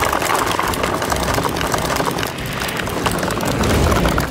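Hard plastic wheels of a sit-on toy excavator rolling over a gravel road: a continuous crunch with a dense crackle of small clicks.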